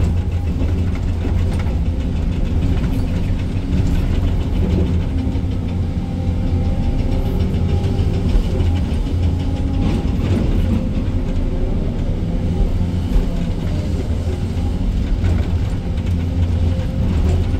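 SANY 305 excavator's diesel engine running steadily under load as it works its hydraulics, with a few light knocks along the way.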